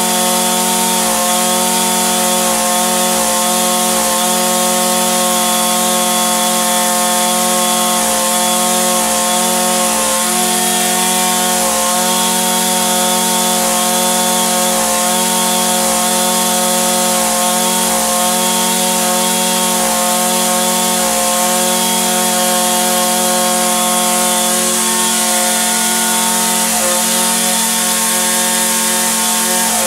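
Echo SRM-2620 string trimmer's small two-stroke engine running at a steady speed, with a slight waver in pitch every second or so.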